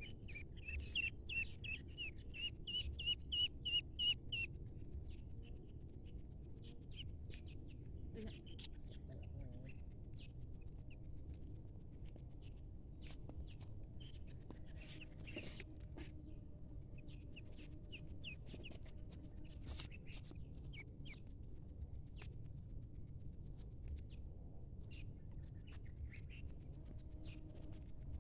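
Ducklings peeping: a quick run of loud peeps for the first four seconds or so, then scattered single peeps, over a steady high ticking in the background.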